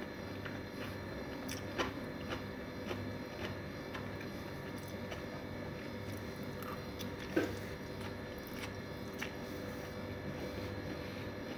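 A person eating noodles with a fork: chewing with a few short sharp clicks and mouth sounds, the loudest about seven seconds in, over a steady low hum.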